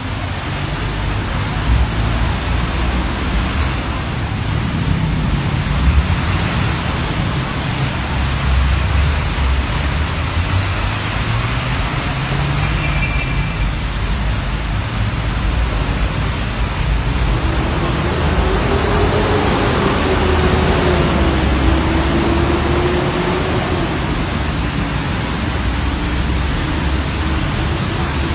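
Steady city traffic noise on a rain-soaked road: vehicle engines and tyres hissing on wet asphalt, mixed with the rain. About halfway through, a brief high tone sounds.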